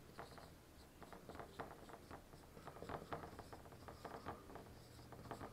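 Marker writing on a whiteboard: faint, short, irregular strokes, a few each second, as letters are written.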